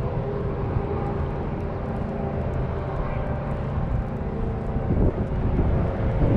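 A steady engine drone holding one pitch, with a few short knocks about five seconds in.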